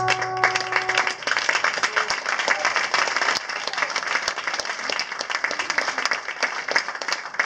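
Audience applause, with the last held brass chord of a trombone band dying away about a second in, leaving steady clapping.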